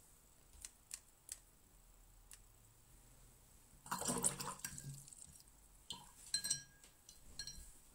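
A few light taps of a watercolour brush flicking spatters of paint, then the brush swished in a water jar and clinking against the glass.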